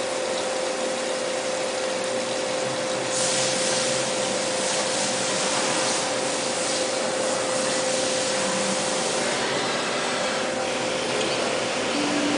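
External cylindrical grinding machine running: a steady hum with a constant whine and hiss. The hiss grows brighter and louder from about three seconds in until about nine seconds in.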